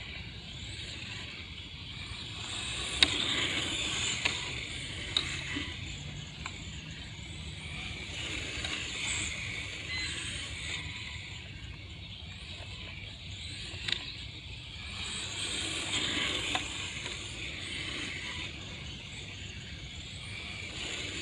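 Serpent Project 4X electric 1/10 touring car running laps on asphalt: a high motor-and-drivetrain whine and tyre hiss that swell twice as the car sweeps past close by, with a few sharp ticks.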